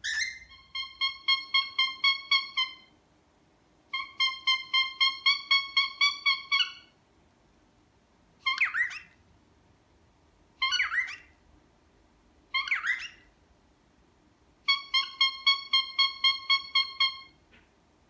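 A pet cockatiel honking: three runs of rapid nasal honks at one steady pitch, about five a second, each run lasting two to three seconds, with three short squeaky calls in between. The honk is a learned call, grown out of mimicking its owner's squeaks.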